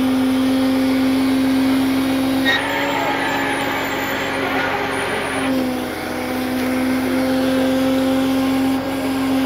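Tow truck's engine and winch running with a steady whine. About two and a half seconds in, a louder hiss joins it for some three seconds, then the steady whine goes on alone.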